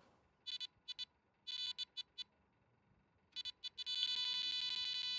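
Electronic carp bite alarm sounding: a few short single beeps in the first two seconds, then a quick stutter of beeps about three and a half seconds in that turns into one continuous tone. The unbroken tone is the sign of a run, a fish taking the bait and pulling line.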